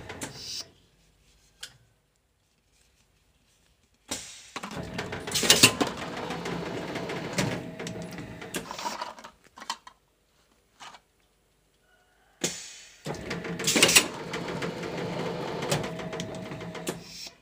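Plastic bottle blow moulding machine running in two stretches with dead silence between them: a steady mechanical clatter with a low hum, and one short loud burst in each stretch.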